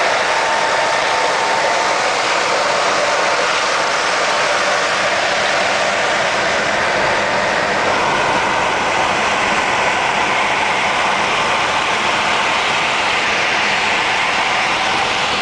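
Steady driving noise inside a Ford Fiesta's cabin at motorway speed: engine, tyre and wind noise together, loud and unchanging.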